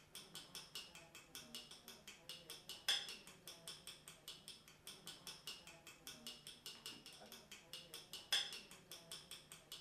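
Faint, even ticking about four to five times a second, with two louder scrapes of a metal spoon against a tin can and bread, about three seconds in and near the end.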